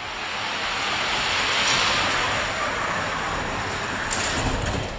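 Several Hot Wheels die-cast cars rolling along a long plastic track, a steady rushing rumble that swells to its loudest about two seconds in, with a sharp knock at the very end.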